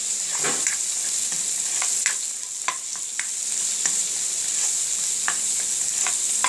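Chopped onions sizzling in olive oil in a nonstick wok, with a spatula scraping and knocking against the pan as they are stirred. Fish frying in a second pan adds to the steady sizzle.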